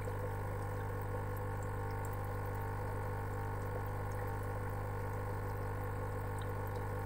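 Aquarium pump and filter running: a steady low hum with water trickling and bubbling.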